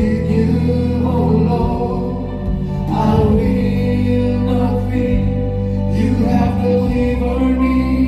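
Christian worship music with singing over a steady bass accompaniment.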